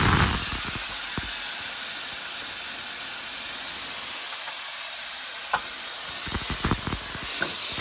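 Pressurized test gas hissing steadily out of a refrigerator's sealed system through its access valve as the leak-test pressure is vented; the hiss cuts off suddenly near the end.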